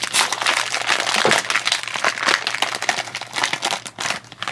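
A foil blind bag crinkling and crackling as hands pull it open, a dense run of small crackles.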